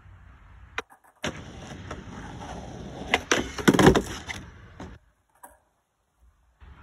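Skateboard wheels rolling over concrete and wooden planks, broken near the middle by several sharp clacks as the tail strikes and the board clatters on the plank deck. The rolling stops about five seconds in.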